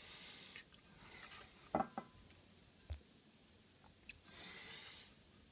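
Faint handling of a circuit board against its plastic housing as it is lifted out and turned over: a few light knocks and clicks about two and three seconds in, and a soft rustle later on.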